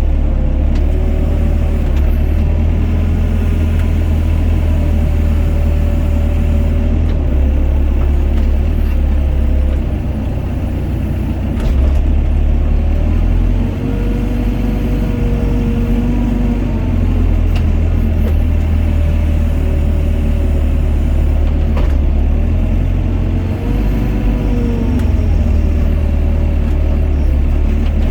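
Doosan DX55 mini excavator's diesel engine running under hydraulic load: a steady low rumble with a whine whose pitch shifts as the machine works, arching up and falling back twice, in the middle and near the end.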